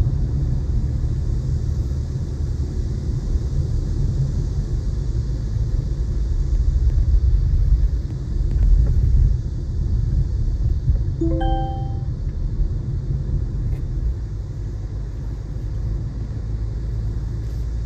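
Steady low rumble of a moving car's engine and tyres on the road, with a brief electronic chime of two quick notes about eleven seconds in.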